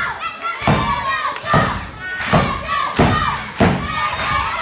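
Heavy thuds from the wrestling ring about every 0.7 s, five in a row, as blows land on a wrestler lying on the mat. A young crowd shouts along between the thuds.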